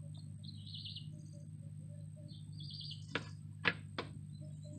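Faint bird chirps in two short bursts over a low steady hum, then three sharp clicks or taps in quick succession about three seconds in.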